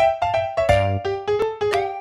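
Background music: a quick tune of short, ringing notes over a low beat.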